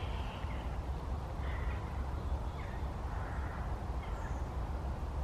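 Outdoor ambience: a low steady rumble with a few faint, short bird calls scattered through.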